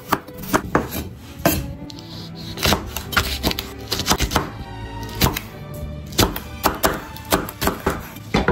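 Chef's knife chopping through potato and then chili peppers onto a wooden cutting board: sharp knocks about twice a second, over background music.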